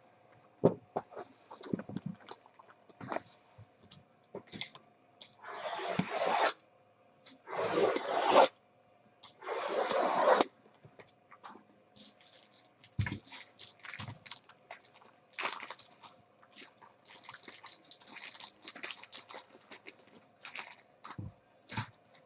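Sealed cardboard trading-card boxes being handled and shifted on a table: rustling and light knocks, with three long rubbing sounds about five to ten seconds in that are the loudest part.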